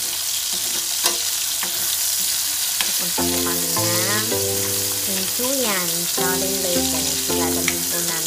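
Hotdog slices frying in tomato sauce in a wok, sizzling steadily, with clicks and scrapes of a spatula stirring them. From about three seconds in, a tune of held notes plays along with the sizzle.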